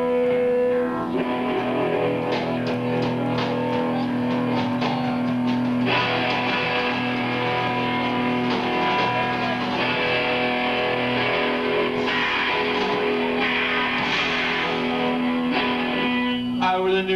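A rock band playing live through amplifiers, led by electric guitars, with a low note held under changing chords for most of the time. The held note stops near the end.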